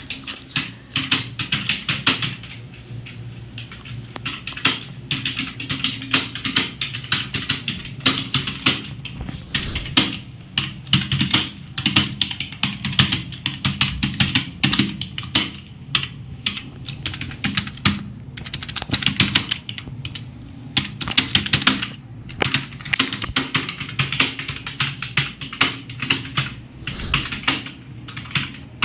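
Fast typing on a computer keyboard: key clicks in quick, dense runs broken by brief pauses.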